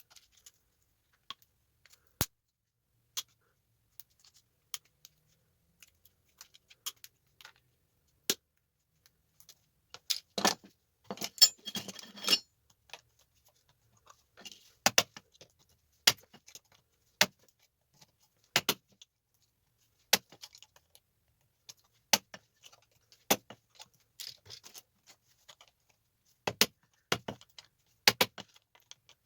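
Small metal tactile switches being pried off circuit boards and clinking as they drop: sharp clicks about one every second or two, with a longer metallic rattle near the middle.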